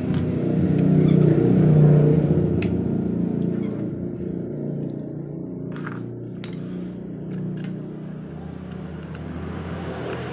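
An engine running steadily in the background, loudest about two seconds in and then easing off, with a few light clicks.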